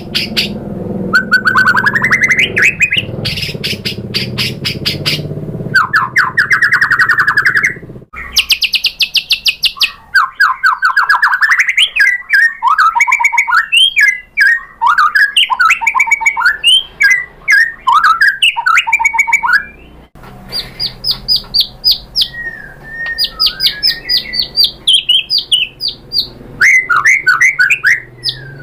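White-rumped shama singing a long, varied song: runs of fast rattling notes alternating with rising and falling whistled phrases, broken by short pauses about 8 and 20 seconds in.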